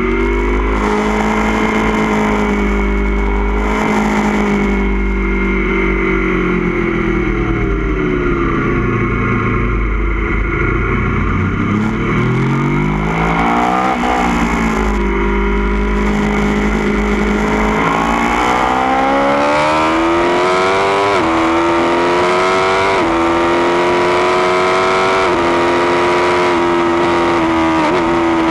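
2016 Aprilia Tuono V4 1100 Factory's V4 engine through an Austin Racing GP1R exhaust, heard onboard at track speed. The revs fall as it slows for a corner, then climb hard again. In the second half come four quick upshifts, each a sudden drop in pitch before the revs climb again.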